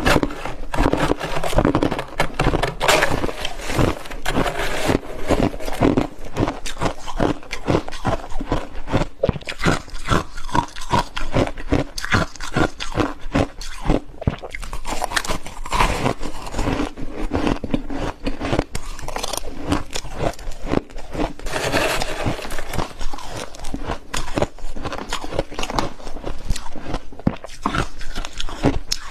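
Freezer frost being bitten and chewed close to the microphone: a dense run of rapid, crisp crunches.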